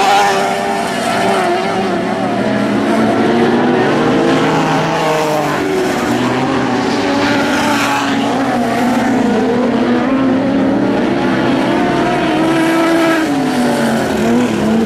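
Several Lightning Sprint race car engines running on track, their pitches rising and falling as the cars accelerate and back off around the oval.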